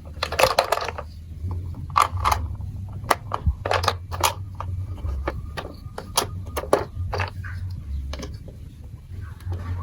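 Plastic marble run building pieces clicking and clattering as they are handled, with a short rattle about half a second in and then a string of separate sharp clicks. A steady low hum runs underneath.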